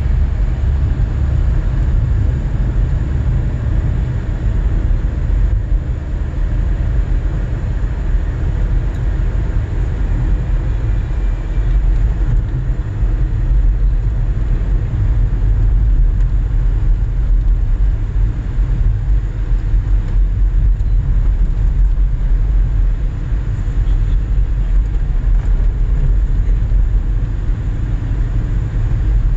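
Steady low rumble of a car driving at road speed, heard from inside the cabin: engine and tyre noise with no sudden events.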